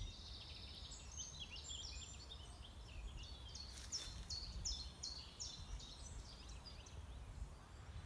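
Small songbirds singing: many quick, high chirping notes repeated in runs, over a steady low rumble.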